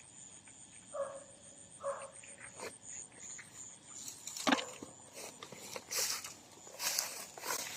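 Insects chirping steadily in a fast pulsing rhythm, with two short animal calls about one and two seconds in. From about halfway, footsteps and rustling with a sharp snap, which is the loudest sound.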